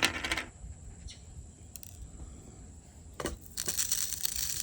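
Hand-turned 3D-printed grinder crunching stuck-together diamond painting drills apart: a short crunch at the start, a few scattered clicks, then a longer stretch of gritty crackling about three and a half seconds in.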